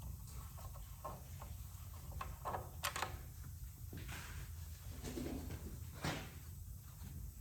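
Scattered metallic clicks and knocks of hand tools working the spindle nut on a front wheel hub, the sharpest pair about three seconds in and another about six seconds in, over a steady low rumble.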